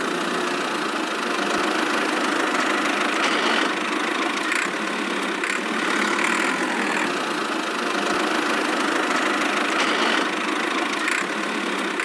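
A miniature model tractor's motor running steadily: an even, unbroken engine-like drone.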